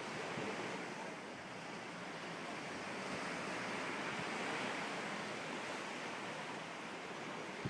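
Steady rushing noise of water and wind, like surf, swelling slightly around the middle.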